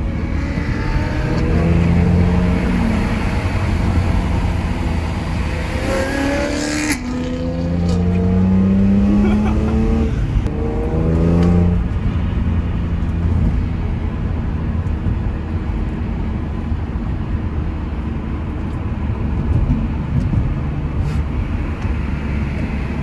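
BMW M3 engine accelerating hard, its pitch climbing through the gears with short breaks at the shifts, then settling to a steadier drone after about twelve seconds.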